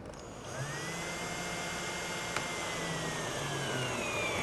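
Cordless drill driving a wood screw into a board. The motor whine rises as it spins up, holds steady, then sags lower as the screw draws tight, and stops just after four seconds in, with the screw seated.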